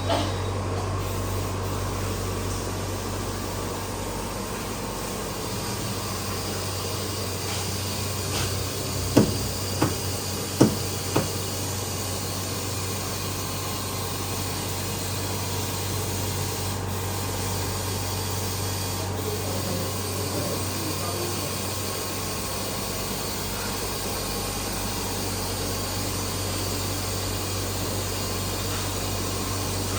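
Steady low hum and hiss, with four short sharp clicks or taps about nine to eleven seconds in.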